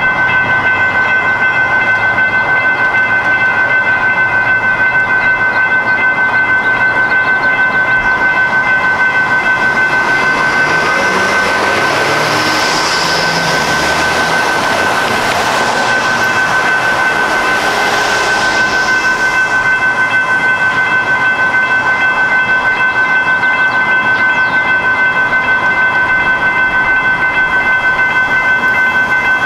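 Railroad crossing warning bell ringing steadily in fast, even strokes. From about ten to twenty seconds in, a light rail train passes through the crossing: its wheel and rail noise swells to a hiss, then fades.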